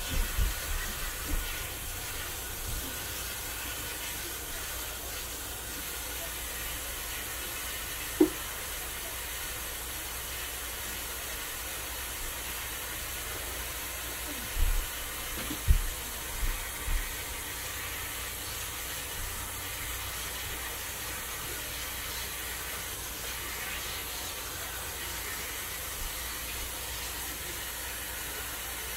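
Kitchen faucet running steadily into a stainless steel sink while leafy greens are rinsed under it. A few short low knocks from handling at the sink, one about eight seconds in and a cluster around the middle.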